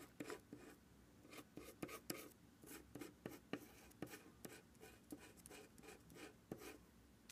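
Faint scraping and tapping of a metal spatula on a palette as turquoise colour gel is stirred together with crystal powder into a sculpting paste: short, irregular strokes, a few a second.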